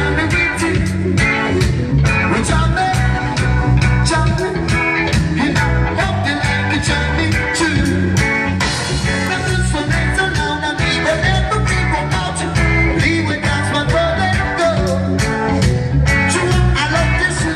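Live rock band playing through a PA system, with drums keeping a steady beat, electric guitar, bass and keyboard, and vocals, heard loud from among the audience.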